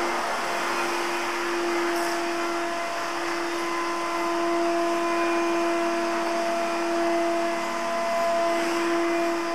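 Canister vacuum cleaner running steadily, a constant motor hum over a rushing hiss of air.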